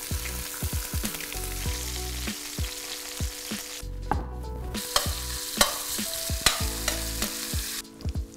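Chicken thighs sizzling as they brown in hot oil in a stainless-steel pan, with sharp clicks and scrapes of a utensil turning and lifting them. The sizzle breaks off briefly about four seconds in and again near the end.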